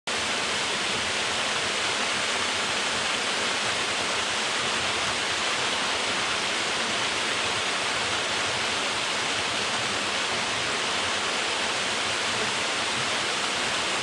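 Small waterfall cascading over rock ledges into a shallow pool, its rush of water steady and unbroken.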